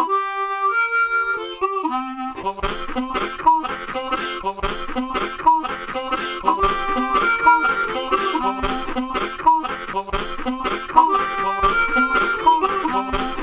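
Blues harmonica music that starts suddenly out of silence, joined about two seconds in by a plucked guitar rhythm.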